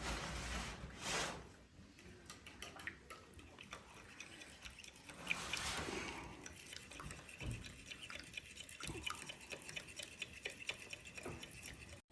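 Kitchen cooking sounds: light clicks and taps of utensils, with two brief rushing noises, one at the start and one around the middle.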